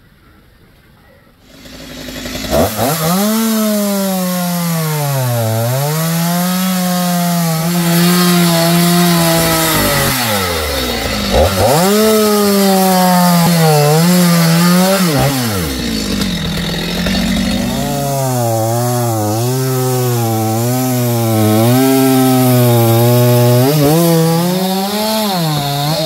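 Stihl chainsaw cutting through a tree trunk at its base. It comes in about two seconds in and then runs at high revs, its engine pitch sagging and recovering several times as the chain loads up in the wood.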